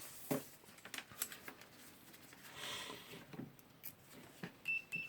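Light clicks and taps of multimeter probes and handling, then two short high beeps near the end from the multimeter's continuity tester. The beeps signal a closed circuit through the wiring being tested.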